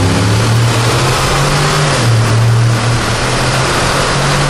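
Mercedes G-Class twin-turbo V8 in sport mode, heard through open windows as the SUV drives through a road tunnel. The engine note steps in pitch about two seconds in.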